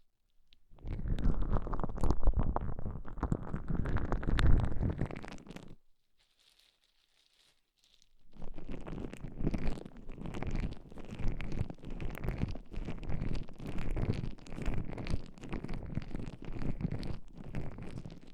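Gloved hands rubbing gel and baby oil over a microphone's ears, giving a close, squelchy rubbing. It stops for about two seconds, then resumes as rhythmic strokes at about two a second.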